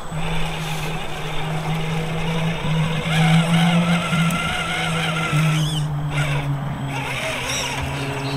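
Redcat Gen9 1/10-scale RC trail truck's electric motor and geartrain whining as the truck crawls through dry grass, the pitch wavering up and down with the throttle.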